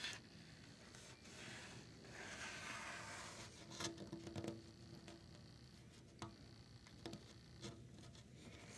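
Fingernails scratching and tapping on a wooden window sill, faint: a soft scraping rub a second or two in, then scattered light taps, with a quick cluster of them in the middle.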